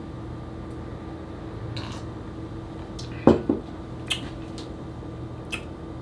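A person taking a sip of an iced cocktail and swallowing, with a short throat sound about halfway through. A few light clicks of ice and glass follow, the last as the glass is set down on the counter. A steady low room hum runs underneath.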